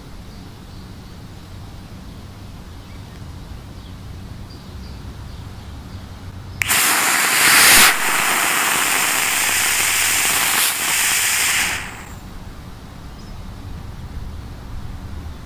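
Homemade potassium nitrate, sugar and sulfur rocket motor in a 1/2-inch PVC casing firing on a static test stand. It lights suddenly about six and a half seconds in and burns with a loud rushing hiss, strongest in its first second, for about five seconds, then cuts off.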